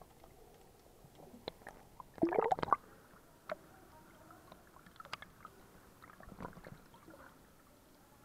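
Scattered splashes and gurgles of water as people swim through the cave's flooded passage, with a louder cluster of splashing about two seconds in and smaller ones later.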